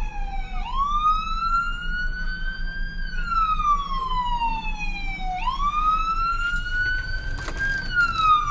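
Emergency vehicle siren in a slow wail, its pitch rising for a couple of seconds and falling back again about every five seconds, over a steady low engine rumble. A sharp knock or two comes near the end.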